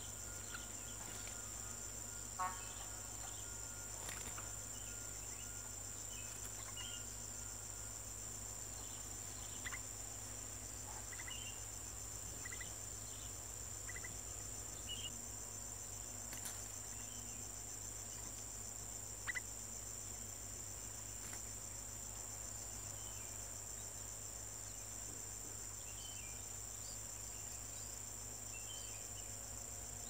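Steady, high-pitched insect chorus trilling continuously, with a scattered few short, high bird chirps and a couple of sharp clicks.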